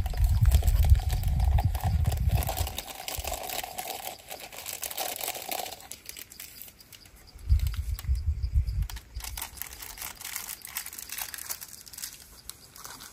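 Wind buffeting the microphone in two low gusts, one at the start and one about halfway through, over a steady run of small crackles and rustles.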